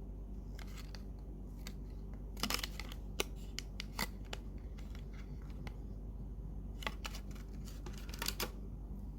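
Quiet handling sounds: scattered light clicks and scratches, with a small cluster about two and a half seconds in and another near the end, over a low steady hum.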